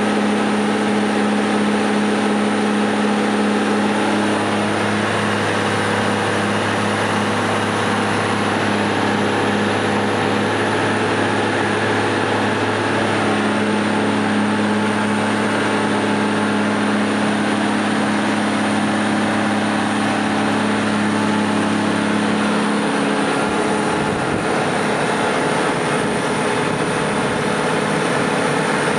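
A 1986 Champion 740 motor grader's six-cylinder Cummins diesel engine running steadily, with a slight change in its note about three-quarters of the way through.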